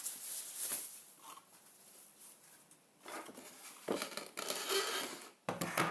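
Cardboard box and packaging being handled, rustling and scraping as a photo frame is taken out. There is a quiet pause in the middle, then a longer spell of louder rustling.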